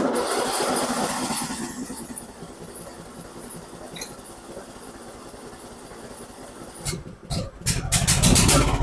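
Briggs & Stratton 21 hp engine on a Craftsman riding mower being cranked by its electric starter, a rapid steady pulsing. About seven seconds in it catches and starts running much louder, its first start after years of sitting.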